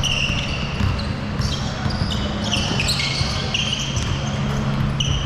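Basketball game in play: a ball bouncing and sneakers squeaking on the court in many short, high-pitched chirps, over a steady low hum.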